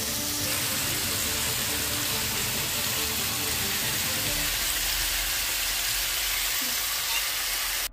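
Red deer steaks sizzling steadily as they fry in a grill pan in their own melted fat.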